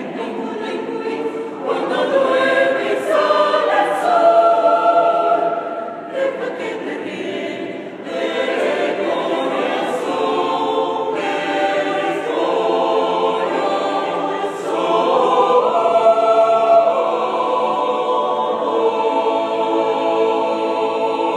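A mixed choir of women's and men's voices singing in several-part harmony, holding chords together, with brief dips between phrases about six and eight seconds in.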